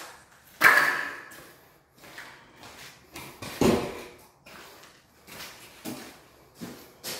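Hand trowel scraping over a patch of wet leveling concrete on a concrete floor, loudest about half a second in, then a heavier knock and a few lighter knocks and footsteps as the trowel is set down and a board picked up.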